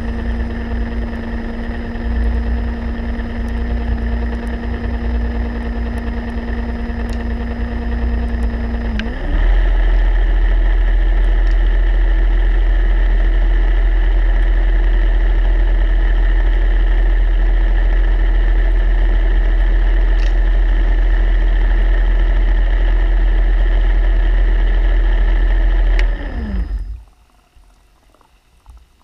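A motor heard underwater, running with a steady, pitched hum. About nine seconds in its pitch shifts and it grows louder; near the end it winds down with falling pitch and stops.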